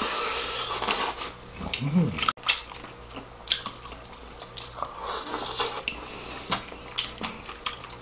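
Close-miked eating: wet chewing and lip-smacking of braised hairtail, with scattered light clicks of chopsticks on the dishes.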